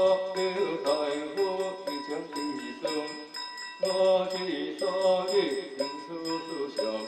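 Taoist scripture chanting in phrases, with short breaks about three seconds in and near the end, kept in time by steady strokes on a wooden fish (muyu) struck with a mallet.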